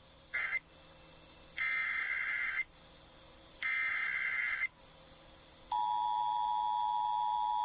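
Emergency Alert System activation broadcast on FM radio: three bursts of the screechy digital SAME header, the first cut short and the others about a second each, then about six seconds in the steady two-tone EAS attention signal begins. It marks the start of an emergency alert, here a National Weather Service tornado warning.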